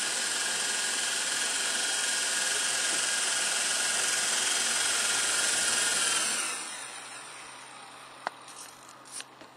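E-Sky Lama V4 radio-controlled helicopter with brushless motors running its rotors: a steady high-pitched whine and rush. About six seconds in, the motors are cut and the sound winds down over a second, followed by a few faint clicks.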